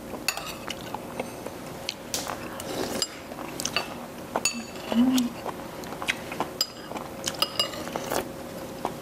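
Spoons and chopsticks clinking and tapping against bowls and dishes during a meal, many short ringing clinks at irregular intervals, with a brief low hum about halfway through.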